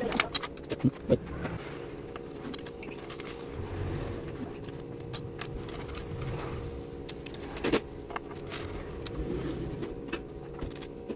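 Small plastic building bricks clicking and rattling as they are handled, with scattered sharp clicks and one louder snap near the end, over a steady low hum.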